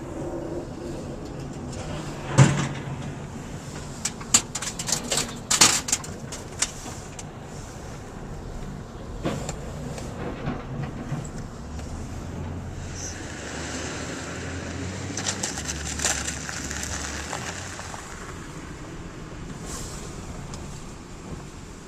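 Street with vehicle engines running, broken by sharp knocks and clanks: a loud one about two seconds in, and a run of them a couple of seconds later.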